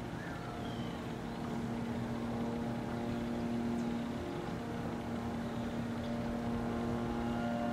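Distant engine droning steadily at one pitch, growing a little louder about a second and a half in.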